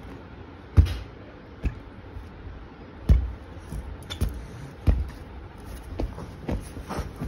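Irregular soft thumps and knocks, about eight spread across several seconds, over a steady background hiss: bumps and handling close to the recording phone.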